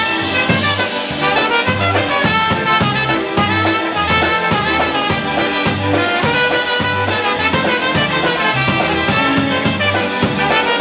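Live Polish polka band playing an instrumental break, a trumpet carrying the tune over a bass line and drums that pulse on a steady beat.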